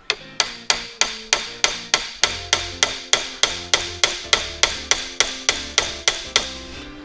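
Hammer blows on a steering box's stuck pitman arm held under a tensioned pitman arm puller, used to shock the arm loose: a steady run of about twenty ringing metal strikes, roughly three a second, that stops shortly before the end.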